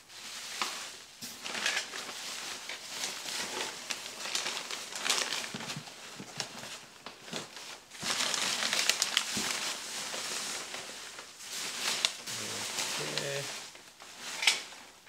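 Packing material crinkling and rustling as it is handled, with small knocks and clicks. It is busiest about eight seconds in, and there is a sharp click near the end.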